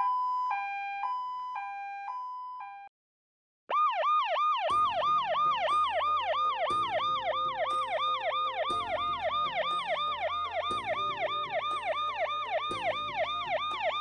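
Police siren sound effects. A two-tone hi-lo siren, switching between its two notes about twice a second, fades and breaks off about three seconds in. After a short silence a fast yelp siren starts, with rapid rising sweeps about four times a second.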